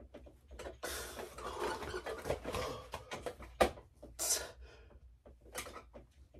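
A man panting and breathing hard under the strain of dumbbell Bulgarian split squats, with one sharp knock about three and a half seconds in.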